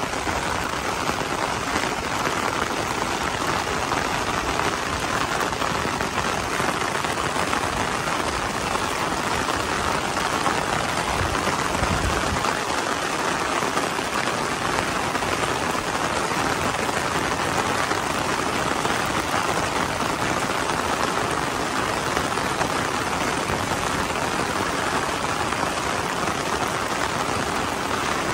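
Heavy monsoon rain falling on a fabric umbrella held overhead, a dense, even hiss that stays steady throughout.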